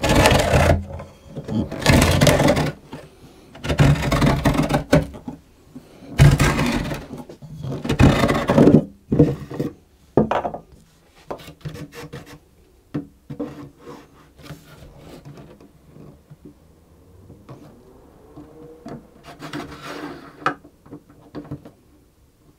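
Tapered end pin reamer being turned by hand in a cello's end pin hole, scraping wood in five long rasping strokes about two seconds apart as the too-small hole is widened. After about ten seconds only light clicks and handling sounds remain as the end pin is pushed into the hole to check the fit.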